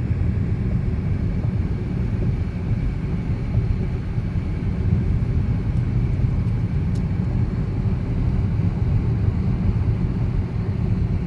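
Car driving along the road, a steady low rumble of engine and tyre noise heard from inside the cabin.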